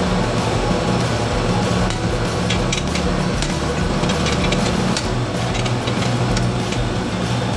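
Sharp metal clinks of a breaker bar and socket working the rear hub bearing bolts: several come close together a few seconds in, and a few more follow later. Under them runs a steady low hum.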